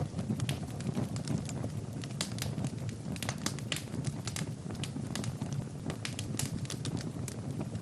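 Fire in a fireplace crackling, with frequent sharp pops and snaps over a low steady rumble of the flames.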